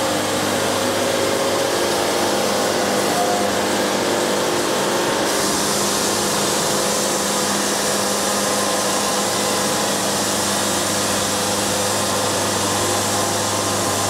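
Wood-Mizer LT70 band sawmill running steadily on its diesel engine, with the hiss of the band blade cutting through the cant coming in about five seconds in and stopping shortly before the end.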